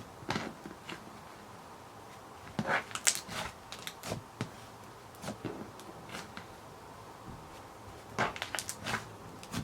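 Close handling noises of slime and its small plastic containers: scattered sharp clicks and short crackly clusters, busiest about three seconds in and again near the end.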